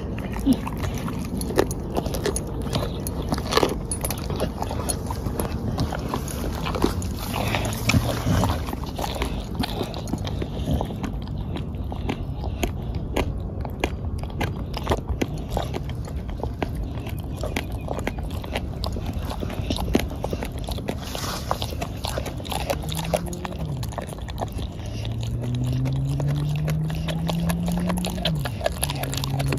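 Bulldog-type dog chewing and biting a whole raw black chicken: wet crunching with many quick sharp clicks of teeth on bone. Near the end a low hum comes in, rising slightly in pitch.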